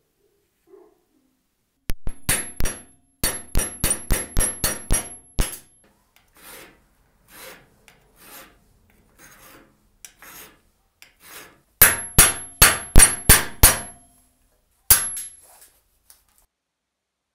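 Hammer blows on a steel punch driving out the rivets of a butcher's axe held in a bench vise: two quick runs of sharp, ringing metal strikes, the second about twelve seconds in. Between the runs, slower and quieter strokes of a flat file rasping down a rivet head.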